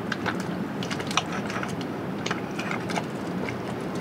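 Metal cutlery clicking and scraping against a plate and grilled lobster shell while eating: a scattered run of short, sharp clicks over steady low background noise.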